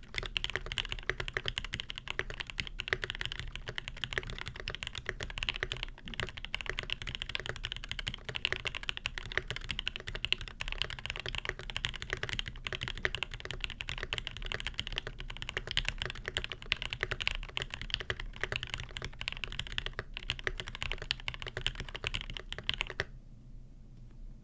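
Fast, continuous typing on a Primus custom mechanical keyboard with lubed Alpaca linear switches in a brass plate and JTK keycaps. The dense clatter of keystrokes stops abruptly near the end.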